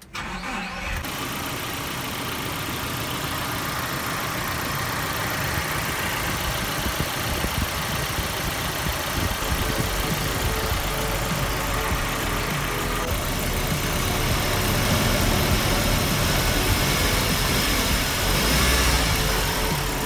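Nissan 2.4-litre twin-cam 16-valve four-cylinder engine starting and then idling steadily after its misfire repair, a little louder in the second half.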